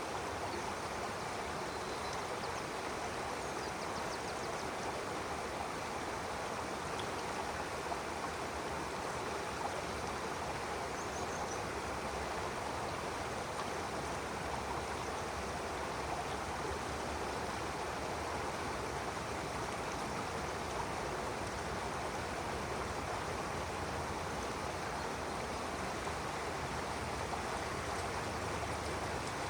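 Stream water flowing: a steady, even rush of moving water with no breaks or changes.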